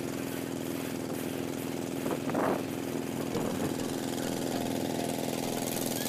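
Engine of a wooden river boat under way, running at a steady pitch, with water rushing and splashing along the hull.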